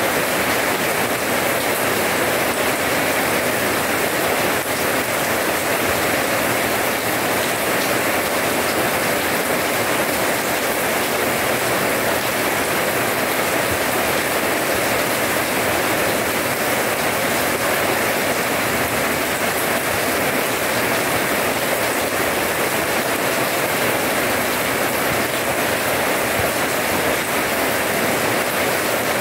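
Steady rain falling on wet paving: an even, unbroken hiss of drops splashing.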